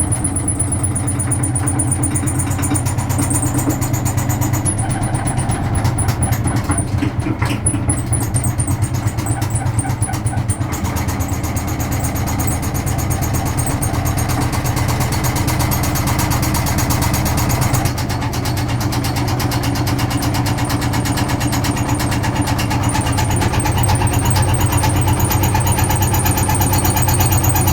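Vintage Frigidaire Super Deluxe Automatic 50 front-loading washing machine running through its cycle, with a steady motor hum and a fast continuous rattle, the sound shifting about 11 seconds in and again about 18 seconds in. The machine is likely spinning and shaking, its suspension stiff from standing unused.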